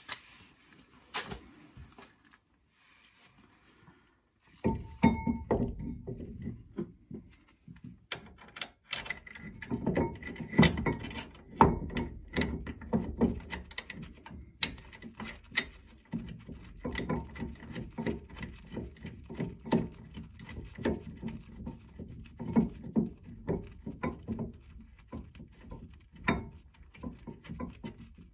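Metal clinks, knocks and handling noise as a Brembo caliper from a Hyundai Genesis Coupe is fitted over the brake rotor onto a Civic's steering knuckle. A few scattered clicks at first, then busier clattering from about five seconds in.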